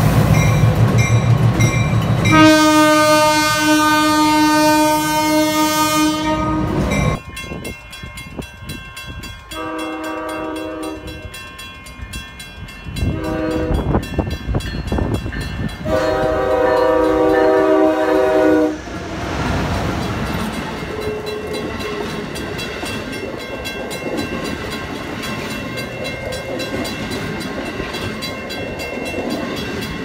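Diesel locomotive engine running, then one long horn blast on a single note of about four seconds. A passenger train's multi-note horn then sounds three blasts, the middle one short, as it comes up to a grade crossing, followed by the steady rush of the train passing over the rails.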